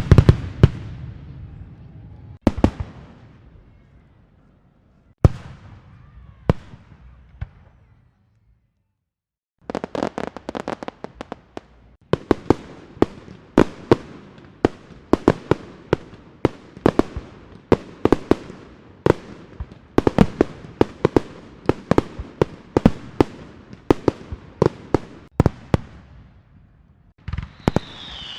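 Fireworks going off: a loud blast fading away at the start, then a few single bangs spaced a couple of seconds apart. After a short gap of silence comes a long, fast run of sharp cracks, several a second, like a string of firecrackers. Near the end the cracking stops and whistling fireworks start, with falling whistles.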